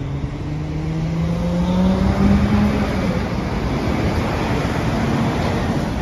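A road vehicle's engine accelerating, its pitch rising over the first three seconds, then steady traffic noise.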